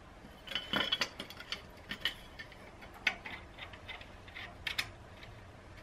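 Brass compression fitting and copper pipe being handled and offered up to a valve, giving light, irregular metallic clicks and taps.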